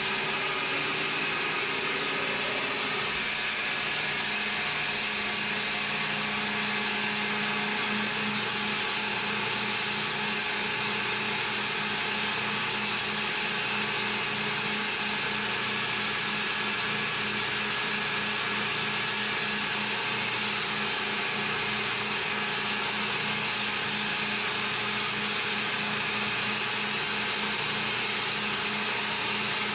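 CNC mill running a machining pass: the spindle and cutter make a steady, unbroken machine sound with a constant hum and hiss.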